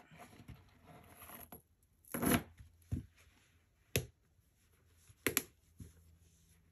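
Handling of a small hard-sided handbag and its metal chain strap: soft rustling, then a few separate sharp clicks and knocks. The loudest is a short clatter about two seconds in, and a quick double click comes about five seconds in.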